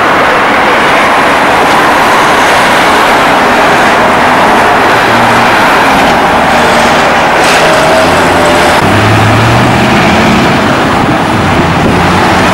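City street traffic: cars and trolleybuses passing, a steady, loud road noise. A low steady hum joins about two thirds of the way through.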